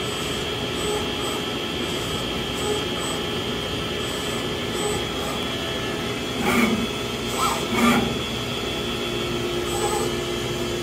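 Walter Helitronic Power CNC tool grinder running, its grinding-wheel spindle and high-pressure coolant spray giving a steady whine and hiss with several steady tones. Two brief louder bursts come about six and a half and eight seconds in.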